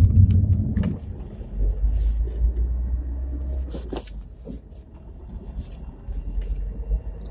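Chevrolet Niva on the move, heard inside the cabin through a phone: a low rumble, loudest in the first second, with several short, muffled knocks from the drivetrain. These are the transmission knocks that remain after the intermediate shaft and left front drive shaft were replaced.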